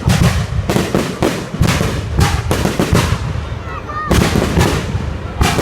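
Fireworks exploding in rapid succession: dense, overlapping bangs and crackling with no pause.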